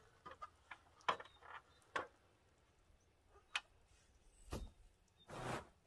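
Scattered light knocks as someone climbs a stepladder and handles a rake. Near the end comes one longer scraping stroke as the rake drags moss and debris across the bus's metal roof.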